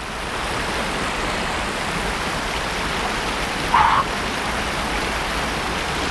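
River water rushing over a low weir and around stepping stones: a steady, even rush of white water, with one brief sharper sound about four seconds in.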